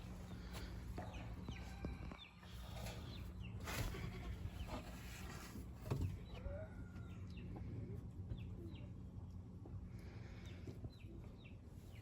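Chickens clucking faintly, with a couple of short knocks about four and six seconds in.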